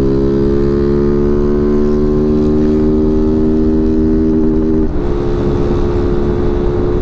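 Honda CG 160 Titan's single-cylinder engine held at full throttle near top speed, about 127 km/h, through a gutted aftermarket steel exhaust ("cano de lata" popping pipe). It runs as one steady, loud note that creeps slowly upward in pitch, and the note changes abruptly about five seconds in.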